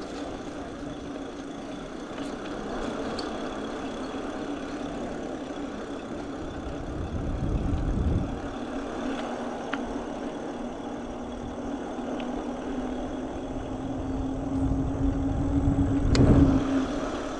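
Electric motor of a kit-built eBike humming steadily while riding, over tyre and trail noise, with a low rumble about halfway through and a louder one near the end.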